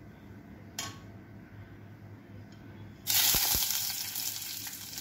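Sliced cashews dropped into hot ghee in a steel kadhai, setting off a sudden sizzle about three seconds in that slowly eases off. Before that there is only one light click about a second in.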